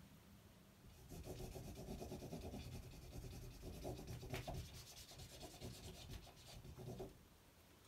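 Highlighter pen rubbing on a sheet of paper taped to a door, marking an answer: faint scratchy strokes that start about a second in and stop near the end.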